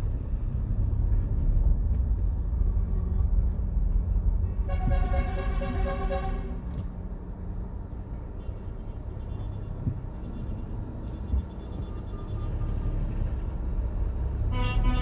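A truck horn sounds for about two seconds, with fainter horn tones after it and another loud horn starting near the end. Beneath it is the steady low rumble of engine and road noise heard from inside the car.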